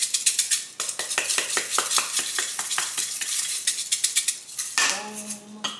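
Spice shaker of dried minced onion shaken over a mixing bowl: a quick run of sharp rattling shakes that stops a little before the end.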